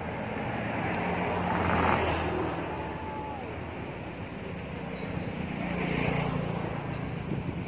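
Road traffic: vehicles passing, swelling up about two seconds in and again around six seconds, over a steady low hum.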